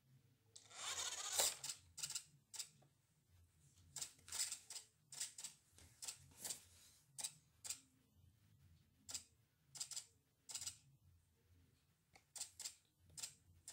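Toy RC car on a tiled floor making short, irregular bursts of scuffing noise with clicks in between as it starts and stops, the longest burst about a second in.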